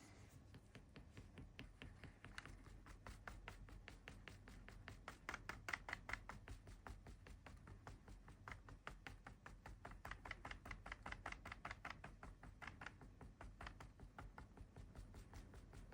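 Rapid, even, light tapping, about five or six taps a second: an ink dabber being patted onto paper to take an ink rubbing.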